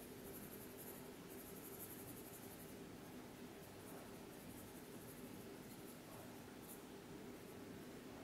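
Faint, soft rustling hiss of dry roasted semolina being shaken from a small saucepan onto grated mozzarella, coming and going in short spells over a low steady hum.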